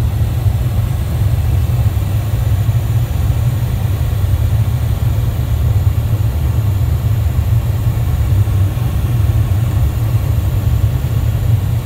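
Steady low rumble of cockpit noise in a Dassault Falcon 7X business jet on approach, airflow and engine noise with a faint hiss above it.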